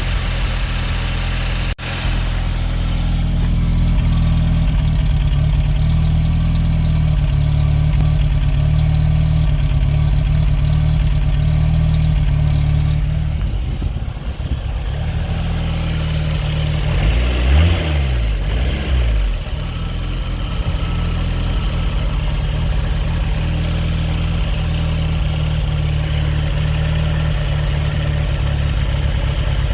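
Fiat X1/9's four-cylinder engine idling roughly, with a brief rev a little past halfway before it settles back to idle.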